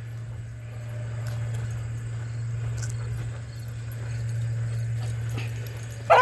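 Dogs play-wrestling and chasing on grass, with faint scuffles and paw thuds over a steady low hum.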